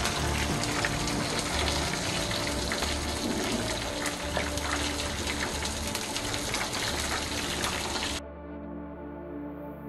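Hot oil sizzling and crackling steadily around pieces of chicken karaage deep-frying in a pan, under soft background music. The sizzle cuts off abruptly about eight seconds in, leaving only the music.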